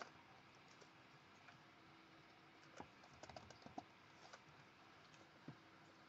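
Faint typing on a computer keyboard: a few scattered keystrokes, with a quick run of several about three seconds in.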